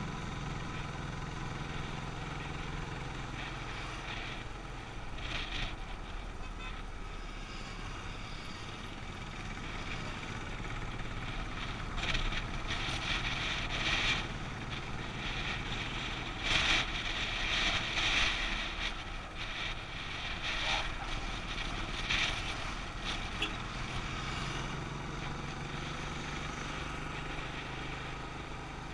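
Motorcycle engine running steadily at cruising speed, with wind rushing over the microphone. Several louder gusts of wind noise come through the middle.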